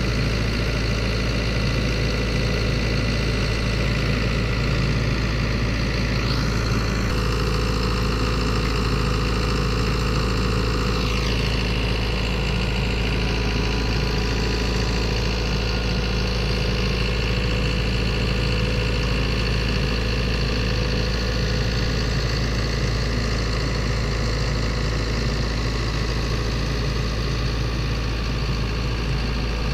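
Skid-steer loader's engine running steadily while it lifts a load on its forks, with a faint whine that falls in pitch twice, around six and eleven seconds in.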